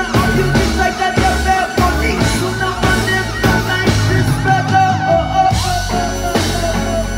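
Live reggae-rock band playing loud through the PA: drums, electric bass, guitar and keyboard. The bass and cymbals drop out for a short break about five seconds in, then the band comes back in.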